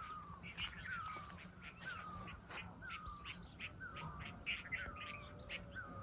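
Birds calling in the hills: one repeats a short falling note about once a second, over quicker, higher chirps.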